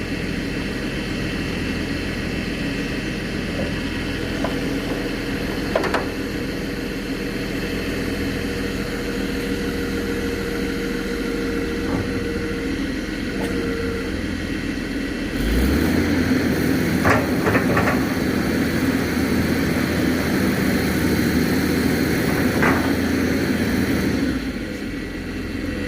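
Excavator engine running steadily, getting louder and heavier about halfway through, with a few short knocks over it.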